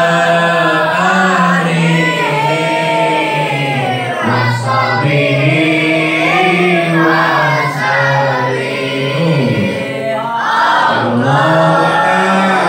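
A group of boys and men chanting Arabic tawasul prayers together in unison, a sustained melodic recitation that pauses briefly twice for breath.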